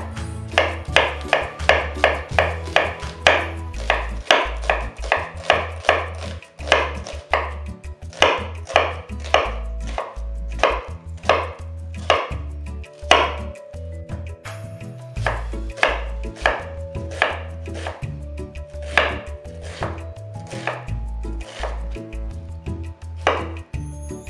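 Kitchen knife chopping onion on a wooden cutting board: quick, even strokes about three a second, mincing the onion finely. The strokes thin out and pause briefly about halfway through, then carry on.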